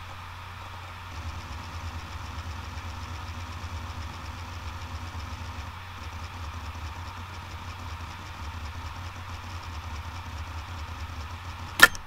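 Hitachi Travelstar 5K750 5400 RPM 2.5-inch laptop hard drive running, with a steady spindle hum. From about a second in, the fast, even ticking of the heads seeking joins it. A single sharp, loud click comes near the end.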